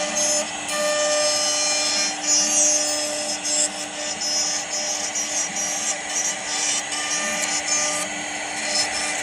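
CNC router spindle running steadily with a high whine as the bit cuts into wood.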